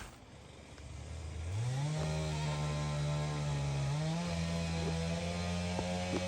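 A small engine running up in speed in two steps, then holding a steady pitch.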